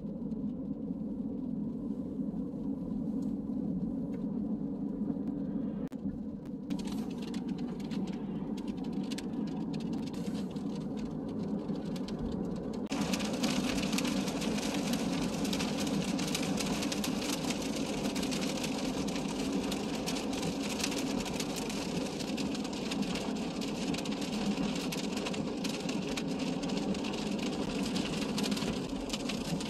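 Inside a car in the rain: a steady low hum of the car, joined about thirteen seconds in by a louder, steady hiss of rain and wet road.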